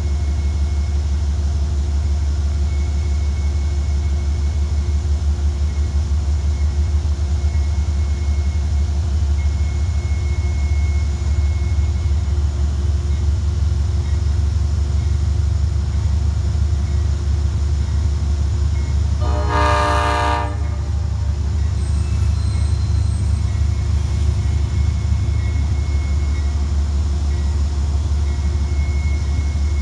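A Metro-North train horn sounds one blast of about a second, about twenty seconds in, over a steady low rumble of trains in the yard.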